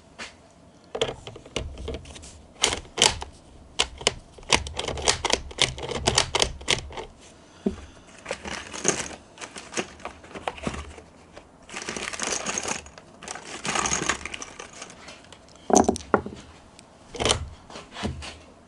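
Irregular metallic clicks and knocks from the action of a Yugoslavian M48 bolt-action rifle being handled, with two longer sliding rasps about twelve and fourteen seconds in.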